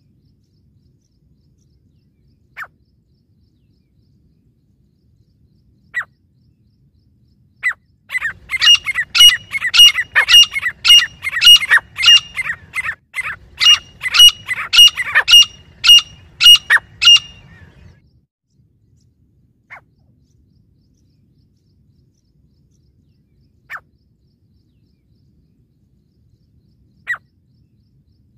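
Grey francolins calling: a few short single calls, then a run of loud, rapid calls at about two a second for some nine seconds, followed by single calls spaced a few seconds apart and a new run starting near the end.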